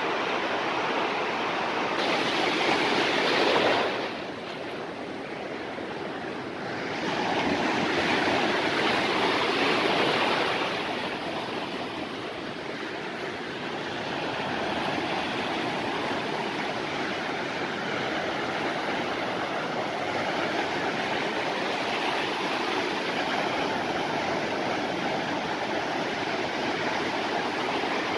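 Ocean surf breaking and washing in over the shallows, a steady rushing of water that swells louder twice in the first ten seconds as waves come in.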